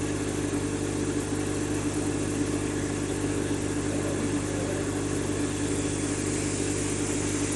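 Steady mechanical hum of a running motor, with several constant low tones that do not change.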